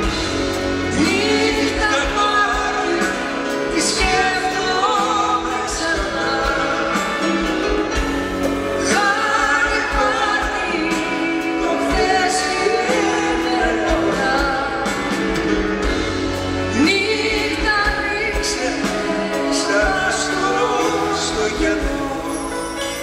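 Live pop duet: a male and a female singer singing with a full band, drums and electric guitar behind them.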